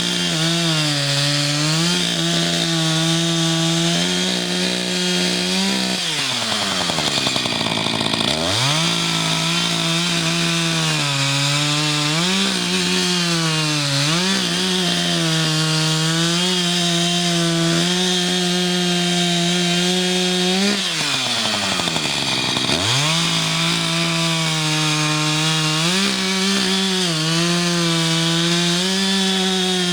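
Echo CS-590 two-stroke chainsaw running at high revs while cutting a log, its pitch sagging slightly as the chain bites. Twice, about six seconds in and again past twenty seconds, the engine drops off toward idle and then revs straight back up.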